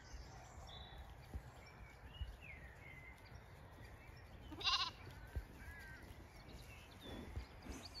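A Zwartbles lamb bleats once, a short high bleat about halfway through, with birds singing faintly.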